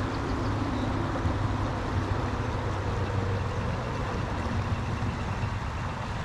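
Small, fast stream running over rocks: a steady rush of water with a low rumble under it.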